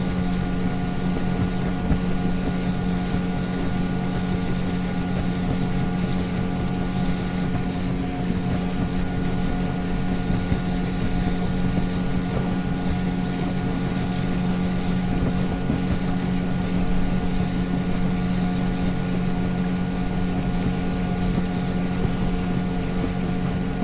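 Motorboat engine running steadily at cruising speed, a constant low drone with even overtones, over the rush of water and wind past the boat.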